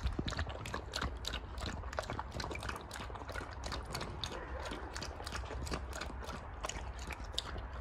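White wolf lapping milk from a bowl: quick, regular wet clicks of the tongue, several a second.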